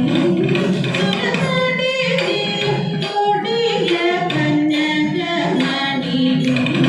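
Women's voices singing a Thiruvathirakali song, a slow Malayalam devotional melody with the pitch wavering and gliding on held notes.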